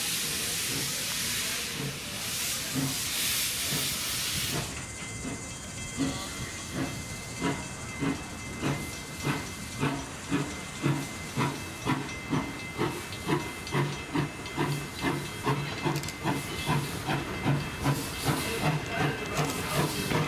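Small steam locomotive venting a loud steady hiss of steam, which stops about five seconds in. It then pulls away, its exhaust chuffing in an even beat that quickens slightly to about two chuffs a second.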